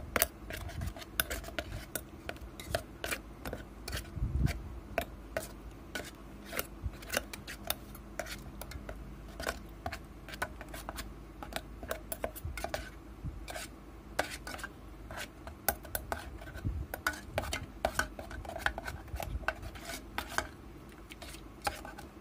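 Metal spoon stirring thick tomato-chili sambal in a metal pot, with frequent irregular clinks and scrapes of the spoon against the pot as the salt and seasoning are mixed in.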